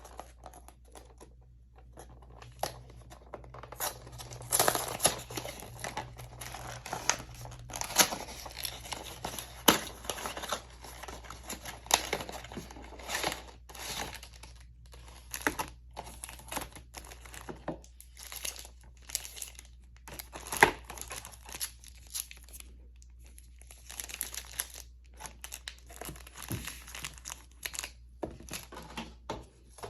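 Packaging of a trading-card booster display being torn open and crinkled by hand, in irregular bursts of crackling and ripping.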